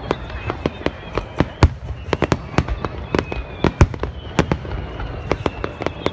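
Aerial fireworks bursting in rapid, irregular succession: several sharp bangs a second over a continuous low rumble.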